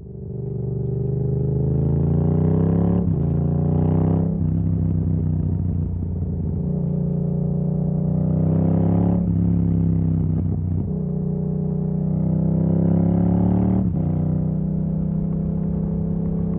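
Yamaha MT-07 parallel-twin engine, straight through an exhaust with the dB killer removed, pulling hard. Its note climbs and drops sharply at each quickshifter upshift, about five times.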